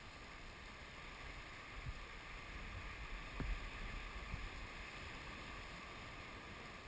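Faint, steady wash of ocean water and wind, with a couple of soft knocks.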